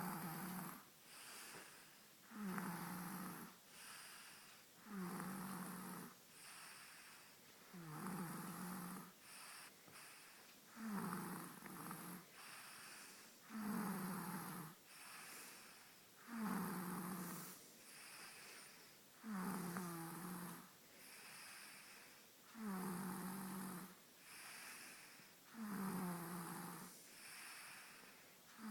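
A man snoring in his sleep: a loud rasping snore on each breath in, about every three seconds, each followed by a quieter breath out, in a steady rhythm.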